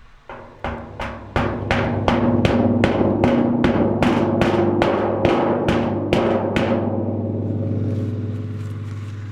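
A hammer striking a 200-litre metal barrel about twenty times, roughly three blows a second, tapping a cold-weld patch into a crack from the other side. The barrel's hollow body rings like a drum at each blow, and the ringing fades away after the last strike.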